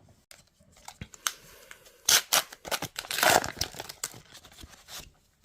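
Foil wrapper of an AFL Teamcoach trading card pack being torn open and crinkled, in a run of sharp rips and rustles, loudest about two and three seconds in.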